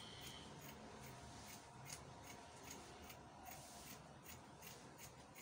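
Orange-handled fabric scissors cutting through shiny green lining fabric along a chalk line, a faint, repeated snip about twice a second.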